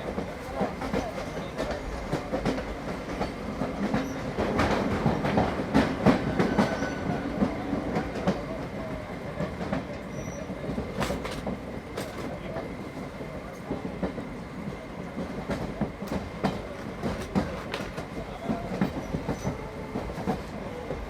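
Moving Indian passenger train heard from inside the carriage: a steady rumble from the coach with wheels clicking and knocking over the rail joints. It grows louder for a couple of seconds about five seconds in.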